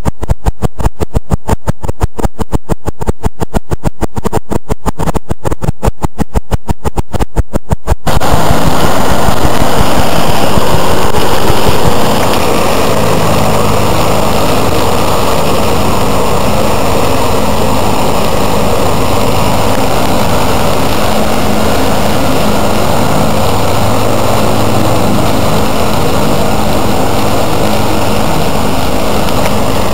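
A rhythmic pulsing, about four beats a second, that cuts off abruptly about eight seconds in. The steady running of a McCormick tractor's engine and its offset orchard mower cutting grass follows.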